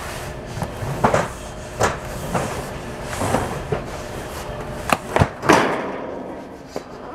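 Large flat cardboard boxes of boxed shelving sliding and scraping against each other, with a series of knocks and thumps as one is dragged off the stack and tipped down; the loudest thump comes about five and a half seconds in.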